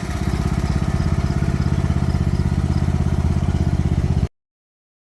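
Riding lawn mower engine running steadily with a fast, even putter; the sound cuts off abruptly about four seconds in.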